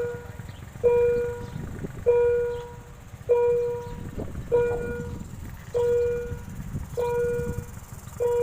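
Railway level-crossing warning bell ringing, one bell-like tone struck about every 1.2 seconds and fading after each strike, with a low rumble underneath.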